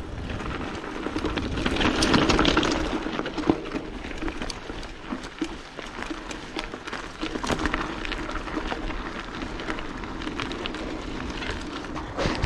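Mountain bike ridden along a dirt bush trail: a steady rush of tyre and riding noise with many small clicks and rattles, swelling louder about two seconds in.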